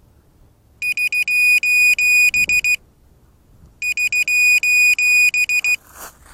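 Electronic buzzer on an FPV drone beeping shrilly in rapid beeps, in two runs of about two seconds each with a pause between, as a lost-model alarm. A brief rustle near the end.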